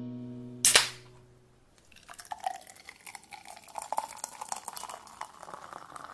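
A drink being poured into a glass: a trickling stream with small splashes, its pitch rising slowly as the glass fills. Before the pour, the tail of a music phrase fades out and one sharp click sounds just under a second in.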